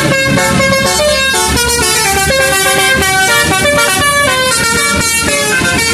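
Indonesian "telolet" bus horn: a multi-tone air horn playing a quick tune of held notes that step up and down in pitch, with an engine running underneath.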